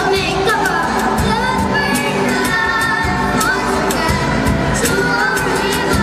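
Live acoustic band music: a girl singing into a microphone over strummed acoustic guitars, with a cajón keeping a steady beat.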